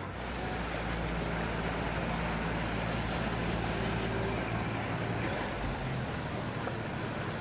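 Small motorboat's engine running steadily as it passes on a canal, a low hum over the wash of water.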